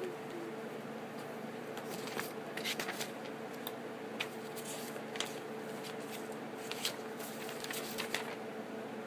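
Sheets of paper rustling and crackling as they are handled, in short irregular crackles starting about two seconds in, over a steady background hum.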